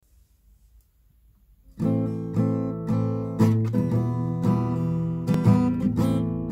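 Acoustic guitar being strummed, starting about two seconds in after a near-silent lead-in, with chords struck in a steady pattern of about two strokes a second.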